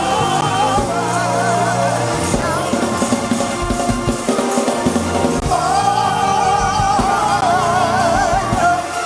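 Live gospel praise-break music: drums and bass under long held, wavering melody notes, as the church moves into praise.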